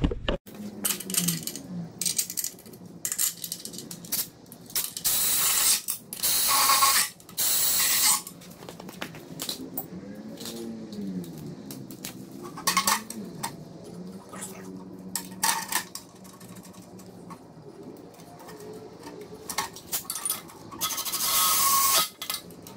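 A ratchet clicking in bursts while bolts are run in to fasten a bellhousing to a Ford 302 V8 block, with clanks of metal tools and parts. Several of the bursts last about a second and are the loudest sounds.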